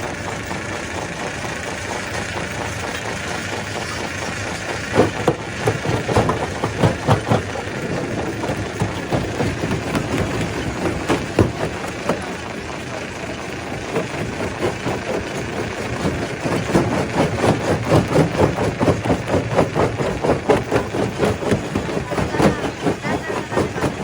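Stone crusher running with a steady mechanical drone. From about five seconds in comes a dense, irregular clatter of knocks and cracks as rock is broken, easing off midway and building again near the end.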